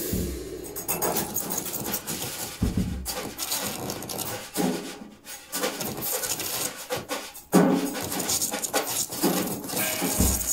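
Improvised percussion music: scraped, rubbed and knocked textures with many small clicks and knocks. A few low thuds come about a quarter of the way in, past the middle, and near the end.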